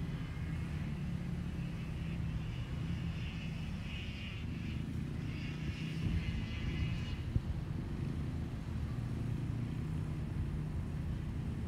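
Pickup truck engines running with a steady low rumble. A higher rushing hiss rides over it until about seven seconds in.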